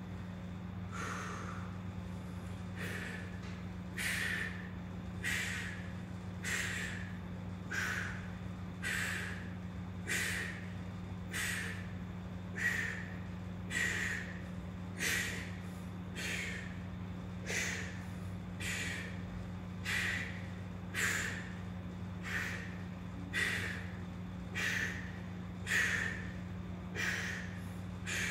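A man's short, forceful breaths, roughly one a second, in time with the effort of hanging knee raises on a pull-up tower, over a steady low hum.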